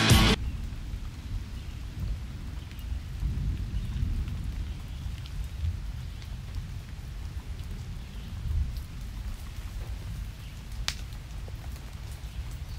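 Outdoor nature ambience: a low, steady rumble with a faint hiss above it, and one sharp crack about eleven seconds in.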